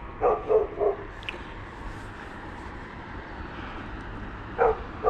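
A dog barking: three quick barks, then two more near the end.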